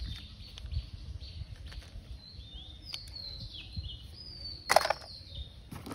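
Birds chirping: a run of short, high calls that each slide down in pitch, over a low steady outdoor background. About three-quarters of the way through, a brief knock of plastic toys being handled.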